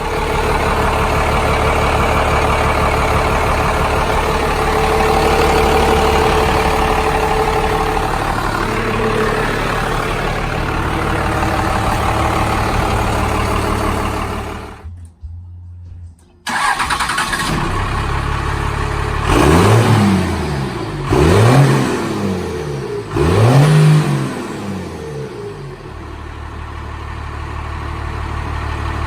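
1997 Cummins 12-valve 5.9-litre inline-six diesel running loud and steady through its stack exhaust. The sound cuts out for a second or two about fifteen seconds in. Later the engine is revved three times, about two seconds apart, each rev rising and falling in pitch before it settles back to idle.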